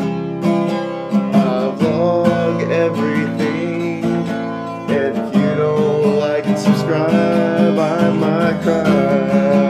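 A man singing while strumming a steel-string acoustic guitar, with steady, rhythmic strums.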